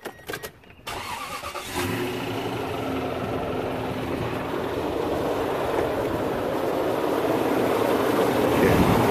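A Toyota pickup's replacement engine is cold-started: a few clicks, about a second of starter cranking, then it catches and runs steadily. It runs with a knock from down at the oil pan, which the owner takes for a bad bottom end that will get worse.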